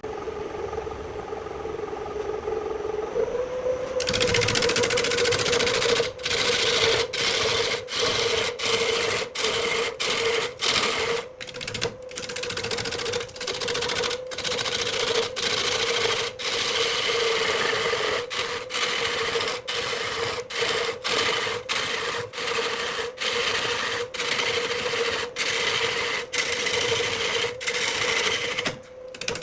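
Wood lathe running with a steady hum. About four seconds in, a tool starts working the spinning wood with a loud rough noise, broken by short gaps more than once a second.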